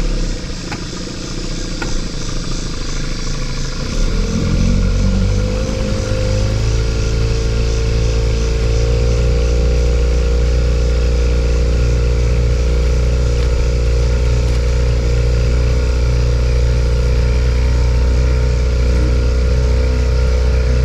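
Boat's outboard motor running, throttled up about four seconds in, rising in pitch over a few seconds and then holding at a steady higher speed.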